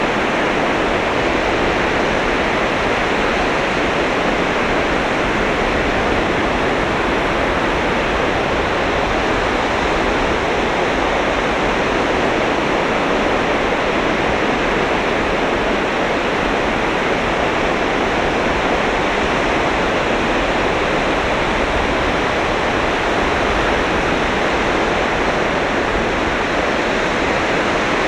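Sea waves breaking on a beach, heard as a steady, unbroken rush of surf with no single wave standing out.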